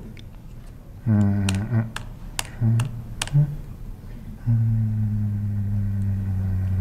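Keystrokes on a laptop keyboard, about five sharp clicks over a second and a half, as values are typed into a layout dialog. A man's voice holds a low steady sound briefly early on and again for about two seconds near the end.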